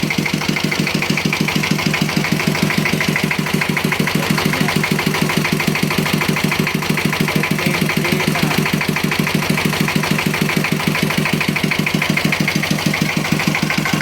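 Secondhand Dompeng single-cylinder diesel engine on a well-drilling rig, running steadily with an even, rapid firing beat during a test run of the rig.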